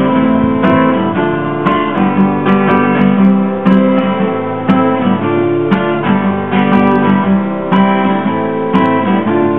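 Instrumental music: acoustic guitar strumming chords in a steady rhythm, with a strong stroke about once a second.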